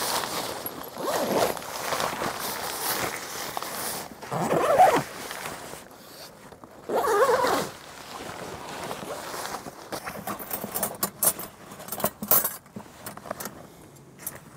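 Zipper on a rooftop tent's travel cover being pulled open, with two long loud pulls about four and seven seconds in, and fabric rustling and sharp clicks near the end as the cover is handled.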